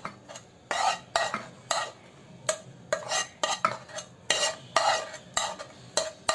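Metal spoon scraping and clinking against a nonstick frying pan while scooping sticky syrup-cooked papaya pieces into steel bowls: a quick run of short, irregular scrapes and taps, with a brief lull about two seconds in.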